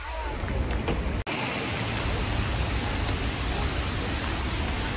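Heavy rain pouring steadily onto wet pavement, an even hiss that breaks off for an instant about a second in and then carries on.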